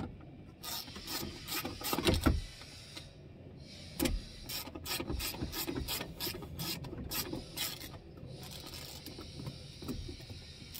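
Socket ratchet clicking in short runs as a bolt is loosened, with a louder knock about two seconds in. The bolt is the bottom bolt of the window track inside a 2007 Saturn Vue's door, coming free being undone for a window regulator replacement.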